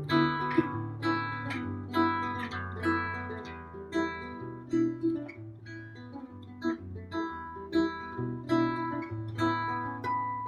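Nylon-string acoustic-electric guitar played fingerstyle: a run of plucked melody notes over held bass notes.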